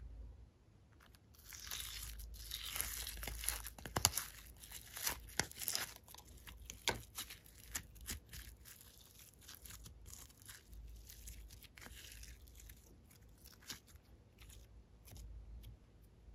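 Fingers squeezing and pulling apart a clump of clear slime packed with iridescent glitter flakes: dense crinkling and crackling with sharp clicks, heaviest in the first several seconds, then lighter and more scattered.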